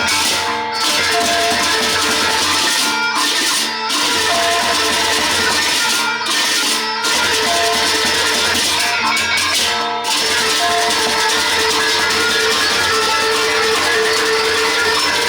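Sasak gendang beleq ensemble playing: large barrel drums with cymbals and gongs in loud, continuous music, with several brief breaks in the rhythm.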